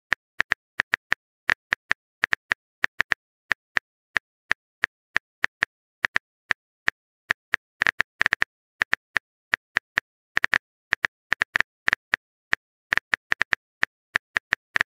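Phone keyboard typing sound effect: quick, irregular clicks, several a second.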